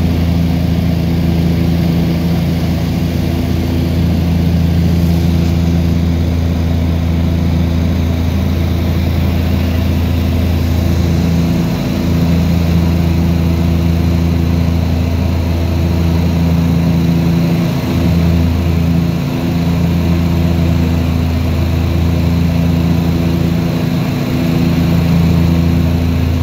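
Propeller engines of a small high-wing airplane heard inside the cabin on approach to land: a loud, steady low drone with a slow swelling and fading pulse.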